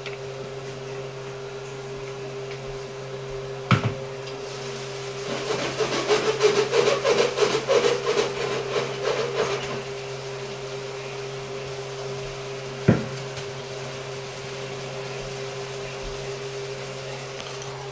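Kitchen handling sounds at the stove over a steady low hum: a sharp knock about four seconds in, then several seconds of rapid clattering of cookware in the middle, and another sharp knock later on.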